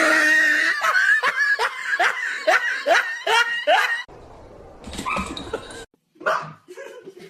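A dog yipping in a quick run of about ten short barks, two or three a second. After about four seconds the yips cut off, and a few quieter, scattered sounds follow.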